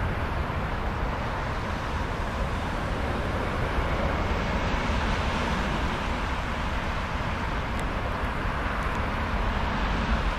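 Road traffic passing close by, a car and then a box van and a lorry, as a steady noise of tyres and engines over a constant low rumble.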